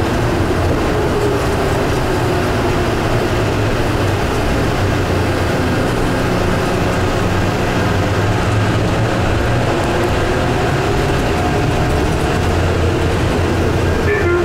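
Denver airport's driverless rubber-tyred people-mover train running steadily through its underground tunnel: a constant rumble of running noise with a low hum and a faint steady whine.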